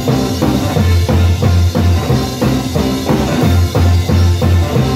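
Live rockabilly trio playing an instrumental passage: upright bass, drum kit and hollow-body electric guitar, with a steady driving beat.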